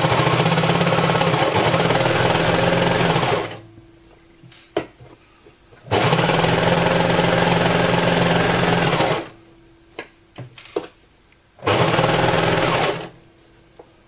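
Baby Lock Imagine overlock serger stitching a side seam in hoodie fabric: it runs at steady speed three times, for about three and a half seconds, then three seconds, then a shorter burst near the end, with pauses between holding a few light clicks as the fabric is repositioned.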